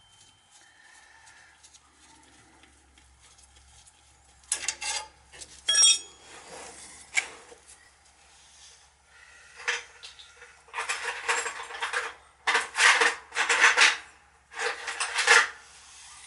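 Metal hand tools clinking and scraping against metal in irregular bursts, starting about four seconds in, with one bright metallic ring near six seconds.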